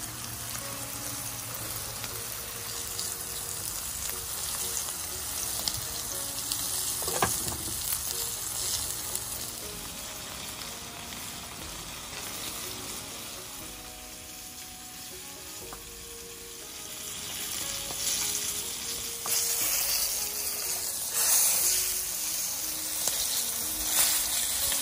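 Hot oil sizzling around a whole flour-dredged nenue (lowfin chub) pan-frying with garlic and ginger in a nonstick pan. The sizzle gets louder about three-quarters of the way through, with a few sharp crackles near the end.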